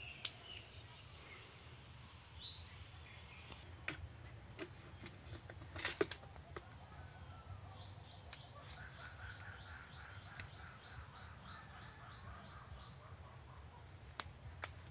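Faint bird calls: a rising call about two and a half seconds in, then a rapid run of high repeated notes for several seconds in the second half, over a faint low rumble. A few sharp clicks and snaps cut through, the loudest about six seconds in.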